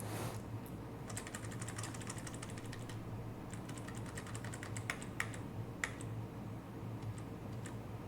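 Typing on a computer keyboard: fast runs of key clicks for about five seconds, with a few sharper, louder clicks near the end of the typing, over a low steady hum.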